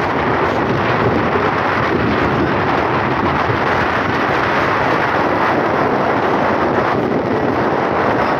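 Steady, loud wind rush buffeting the microphone of a phone carried on a moving vehicle, blended with road noise.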